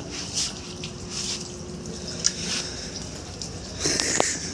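Doberman puppies chewing chicken: irregular wet smacking and crunching, with a louder burst of noise about four seconds in.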